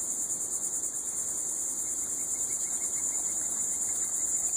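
A steady high-pitched chorus of insects trilling, with a fast even pulse.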